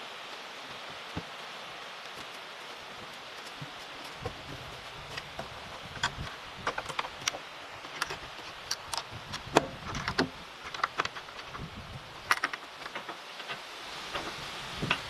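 Steady rain falling, with scattered sharp clicks and taps over it that come thickest in the middle of the stretch.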